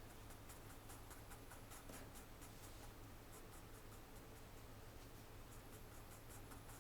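Faint pencil scratching on paper in quick repeated strokes, pausing briefly near the middle.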